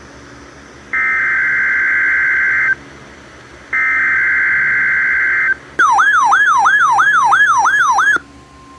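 Emergency Alert System activation on NOAA Weather Radio. Two bursts of SAME digital header data, each a loud buzzing screech of about two seconds with short gaps between them, are followed by a fast warbling, siren-like alert tone for about two and a half seconds. This cuts off into a quieter steady alarm tone near the end.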